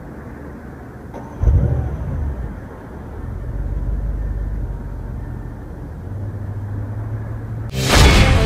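2014 Audi S7's 4.0-litre twin-turbo V8 heard at its quad exhaust tips, idling and revved in short blips, with the sharpest rev about a second and a half in. Music starts near the end.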